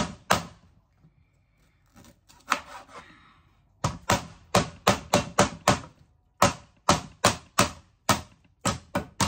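Lemongrass stalks being pounded to bruise them and release their aroma. Runs of sharp, rapid knocks come about four to five a second, with short pauses between the runs.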